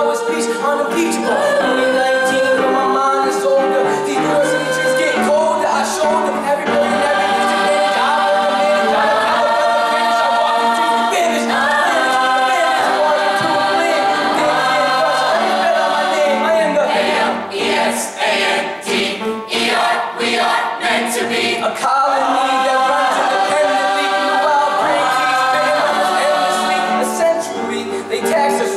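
Mixed choir singing held chords in harmony, with a male soloist on a microphone. About two-thirds of the way through comes a short stretch of sharp rhythmic clicks.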